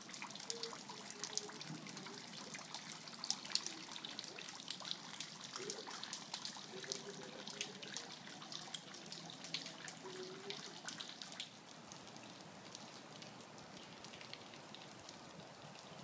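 Tiered garden fountain trickling into its basin, with scattered drips. It gets a little quieter about three-quarters of the way through.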